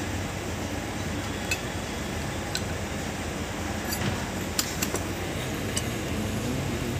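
A handful of short, sharp metallic clicks and clinks at irregular moments, the loudest a little past the middle, from the parts of a vehicle starter motor being handled and fitted together, over a steady background rumble.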